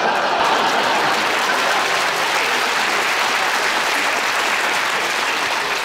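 Large audience applauding steadily for a joke, easing off slightly near the end.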